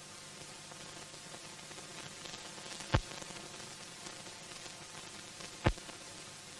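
Steady hiss and light crackle of an old silent newsreel's film soundtrack, broken by two sharp pops about three seconds in and near the end.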